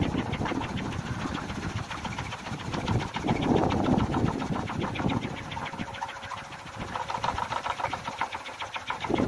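A kolecer, a wooden wind propeller on a pole, spinning in the wind with a rapid buzzing drone of blade beats. The drone swells in the middle and eases off in the second half.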